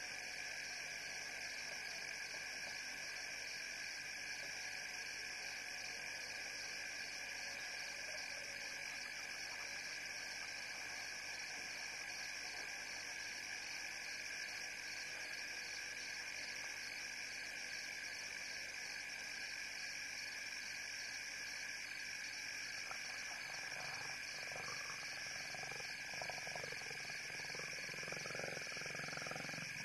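Steady high-pitched night chorus of calling frogs and insects. From about 23 seconds in, low growling from lions joins it as the male closes in on the lioness to mate.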